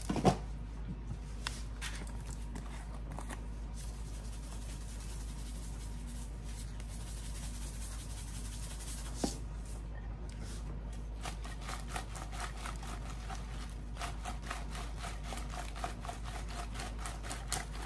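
Light kitchen handling: parchment paper smoothed on a baking sheet, a seasoning shaker shaken over halved Brussels sprouts, then the sprouts tossed in a bowl. This shows as scattered soft clicks and rustles, then a quick run of light clicks in the last several seconds, over a faint steady hum.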